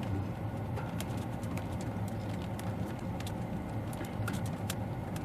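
Small hail ticking irregularly on a car's bonnet and windscreen, heard from inside the car, over a steady low hum.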